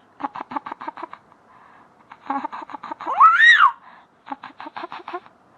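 A baby laughing in three quick runs of staccato giggles, about eight a second, with a loud rising-then-falling squealing voice about three seconds in.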